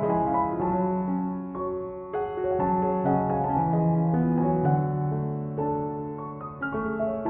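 Background piano music, a slow melody of sustained notes.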